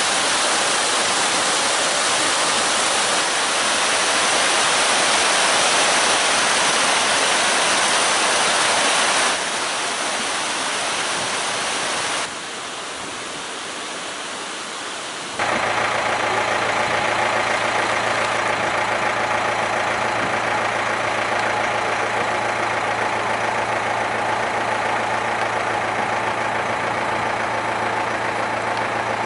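Rushing water, a loud even noise, for about the first nine seconds. After a couple of abrupt changes, a steady engine hum at a constant low pitch runs from about halfway on.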